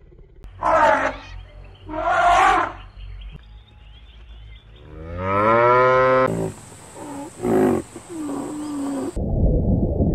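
A lion gives two short roaring grunts about a second apart. Then a cow moos: first one long call that rises in pitch, then several shorter moos. Near the end the sound cuts abruptly to a low underwater rushing noise.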